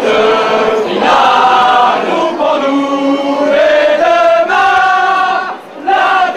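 A crowd chanting together in unison, sung on long held notes in phrases of a second or so, with a short break about a second before the end.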